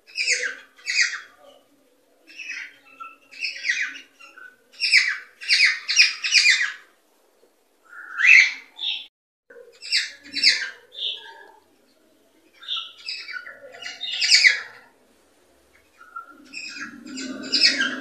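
Cockatiels chirping and squawking in short bursts of rapid, high-pitched calls, with pauses of a second or two between bursts.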